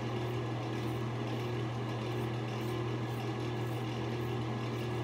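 Razorock Game Changer safety razor scraping stubble on the upper lip in quick short strokes, about two a second, as faint scratches. Under them runs a steady low mechanical hum.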